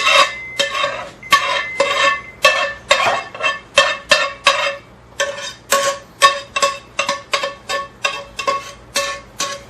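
Spoon scraping mushrooms and their juices out of a metal pan, a quick regular run of strokes about three a second, each setting the pan ringing at the same pitches.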